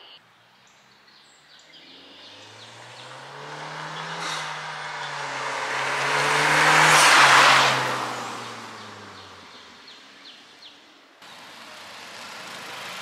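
Muffler-deleted 2021 Honda Civic Sport hatchback driving past: its low exhaust note and tyre noise build as it approaches, are loudest about seven seconds in, and fade as it moves away. Near the end the sound cuts abruptly to a steady background hiss.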